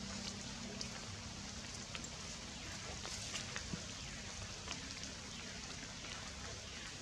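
Heavy rain falling on tree foliage: a steady hiss dotted with scattered sharp ticks of drops striking leaves.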